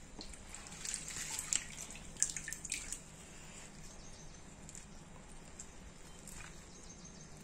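Wet, freshly washed spinach leaves being squeezed and lifted by hand in a steel bowl: soft wet rustling with water dripping, busiest in the first three seconds, then only a faint steady hum.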